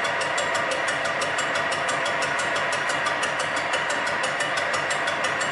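Metal lathe turning an interrupted cut on a cast electric motor bearing housing: the tool ticks against the part in an even rhythm of about ten strikes a second, over the steady hum of the running lathe.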